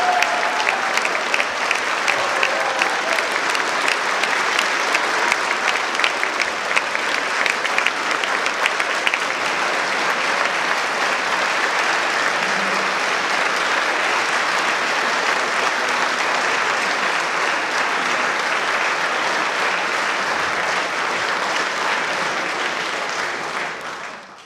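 Audience and choir applauding: a dense, steady clapping of many hands that fades out near the end.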